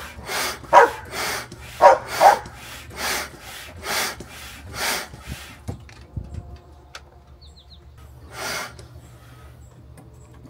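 Hand pump inflating an inflatable stand-up paddleboard, pushed in quick strokes of air at about two a second; the strokes stop about five seconds in, with one more near the end.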